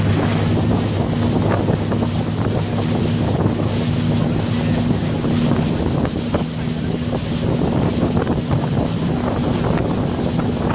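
Small passenger shuttle boat's engine running steadily at an even pitch, with wind buffeting the microphone and water rushing past.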